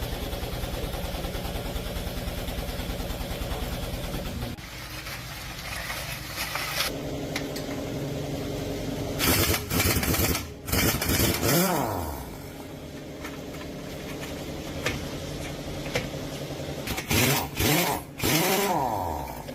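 An engine running steadily, its sound changing and dropping about four and a half seconds in. It is then revved in loud bursts twice, around ten seconds in and again near the end, the pitch sliding down as it slows after each burst.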